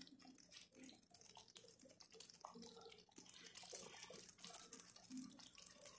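Faint near-silence with soft bubbling and small wet sounds from a thick chicken-and-bean stew simmering in a stainless steel pot over low heat, stirred with a wooden spoon in the second half.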